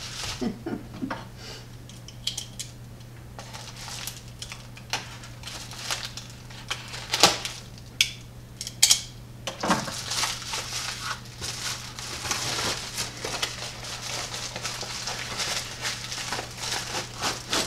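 Black plastic bubble-wrap mailer being handled and opened: crinkling and rustling plastic, with a few sharp crackles in the middle.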